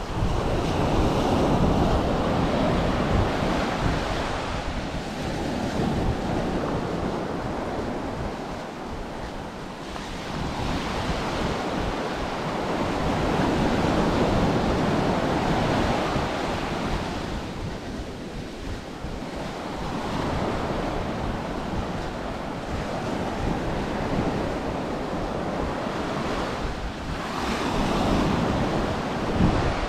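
Ocean surf breaking on a beach, the wash swelling and receding about every six to eight seconds. Wind buffets the microphone throughout.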